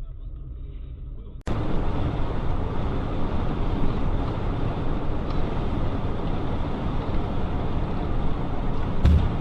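Vehicle road noise: a quieter stretch, then an abrupt change about one and a half seconds in to loud, steady traffic and driving noise. A brief heavy thump near the end.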